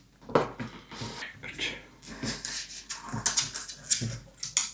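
Miniature pinscher puppy moving about and fidgeting: a run of short, irregular scuffling and clicking noises.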